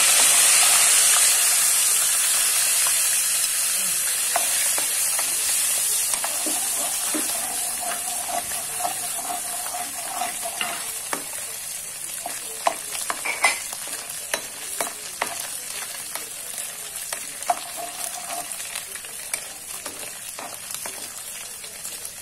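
Dried anchovies frying in hot oil in a wok: a loud sizzle that slowly dies down, with clicks and scrapes from a spatula stirring them around the middle.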